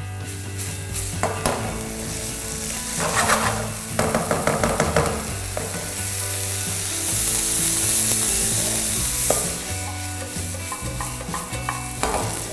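Rice and onion toasting in oil in a frying pan over a gas flame for a risotto: a steady sizzle, with a wooden spoon scraping and stirring across the pan in several bursts. The sizzle grows louder for a few seconds in the middle.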